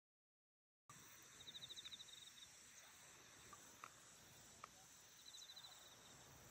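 Faint insect trilling: a rapid pulsed trill about a second and a half in and again near the end, with a couple of soft ticks in between, over a low outdoor hiss.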